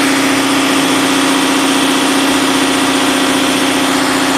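Subaru flat-four boxer engine idling steadily, just jump-started after its battery was drained by sitting unused, now running to recharge the battery.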